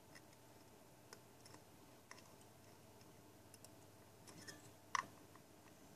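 Faint scattered small clicks and ticks of a metal tool being worked against the wire coils on the atomizer deck, with one sharper click about five seconds in.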